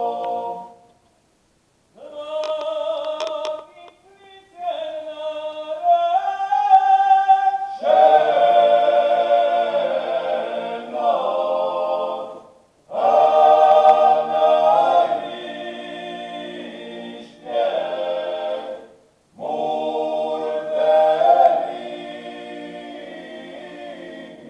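Male klapa ensemble singing a cappella in close harmony, the traditional Dalmatian style. A phrase ends and, after a short pause, a lead voice sings alone before the whole group comes in about eight seconds in, with brief pauses between the later phrases.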